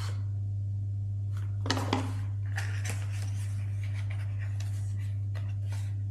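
Product packaging being handled: scattered small rustles and clicks, a louder pair about two seconds in, over a steady low electrical hum.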